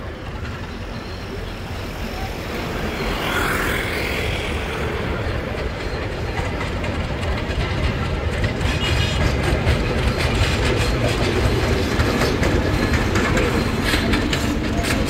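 Diesel locomotives running past on the line, their engine rumble growing steadily louder as they draw near. From about halfway through, the wheels clatter over the rail joints.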